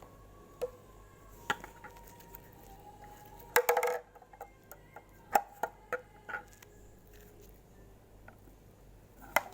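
Slime being handled and pressed into its plastic container: scattered short clicks and taps, with a dense cluster of sticky pops about three and a half seconds in.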